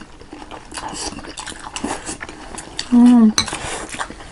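Cutlery clinking and scraping against bowls and dishes while eating, a run of small scattered clicks. About three seconds in comes a short voiced sound from one of the eaters, the loudest moment.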